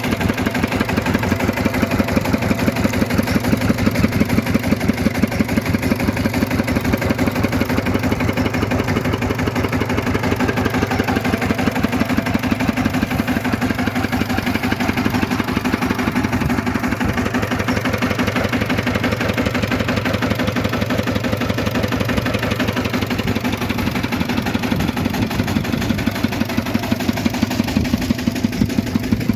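Rice machine running steadily, its motor beating with a fast, even pulse.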